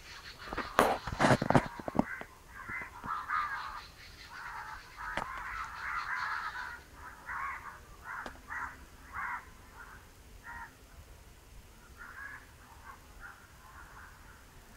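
A few sharp knocks about a second in, then a long run of short repeated bird calls that thin out toward the end.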